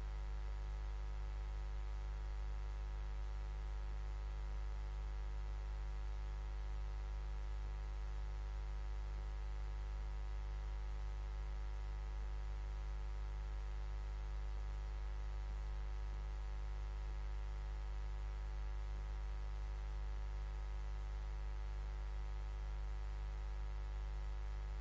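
Steady low electrical hum with a faint buzz of many steady overtones above it, unchanging throughout.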